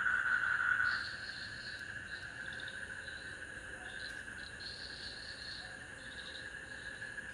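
Chorus of night insects: a steady high trill with fainter, intermittent chirping above it, dropping in level about a second in.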